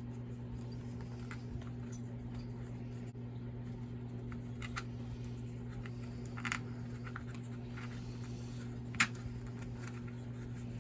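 A steady low hum, with a few faint, short clicks of screws, tools and parts being handled during the chainsaw teardown, the sharpest about two-thirds of the way in.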